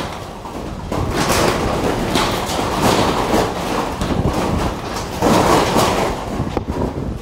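Cyclone-force wind blowing in strong gusts: a loud, rushing noise that swells about a second in and again about five seconds in.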